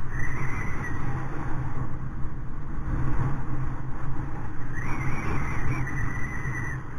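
Wind buffeting the microphone of a moving ride camera, a steady low rumble. A thin high whine comes in briefly at the start and again about five seconds in.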